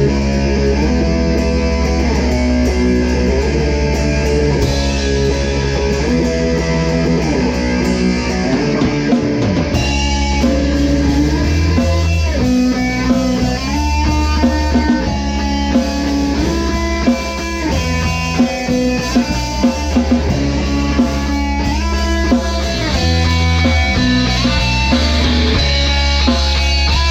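Rock music: guitar over a steady bass, with drums. The sound fills out and gets fuller from about ten seconds in.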